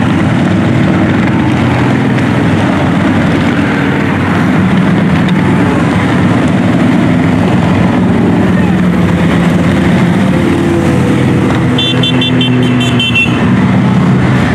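A steady stream of large touring and cruiser motorcycles running past at highway speed, their engines overlapping in a continuous low drone. About twelve seconds in, a short run of quick high beeps sounds over it.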